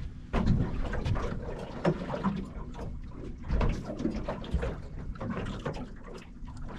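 Water slapping against the hull of a small fishing boat, with irregular knocks and bumps from the boat.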